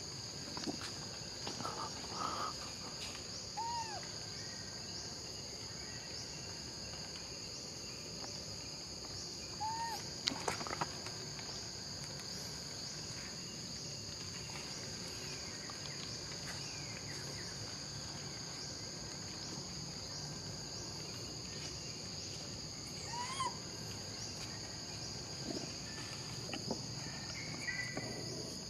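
Steady high-pitched chorus of insects, with a few short rising-and-falling calls scattered through and a brief cluster of knocks about ten seconds in.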